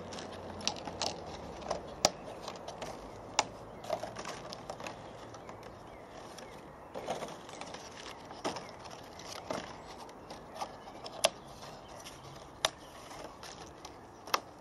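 Tree-shelter sections being pushed and clipped together by hand: irregular sharp clicks and snaps over a steady rustle of handling, a few clicks much louder than the rest.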